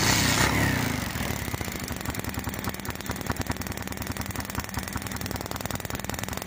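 Kawasaki Bajaj CT 100's single-cylinder four-stroke engine running at a steady idle with rapid, even firing pulses, after a brief louder burst at the start. It is running on a newly fitted original primary coil while its spark is tested.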